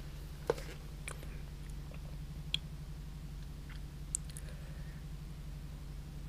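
Handling noise of plants and packing being sorted by hand: a few light clicks and rustles, three of them sharp, over a steady low hum.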